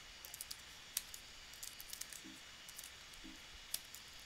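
Faint, irregular clicks of typing on a computer keyboard.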